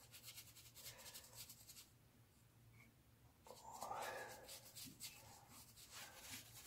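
Faint, rapid scratchy strokes of a foam brush dabbing and rubbing wood stain into the grooves of a carved wood surface, with a brief louder rustle about three and a half seconds in.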